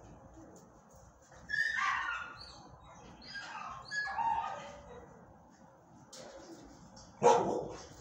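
A dog calling in two drawn-out, high whining yips, then giving one short, sharp bark about seven seconds in.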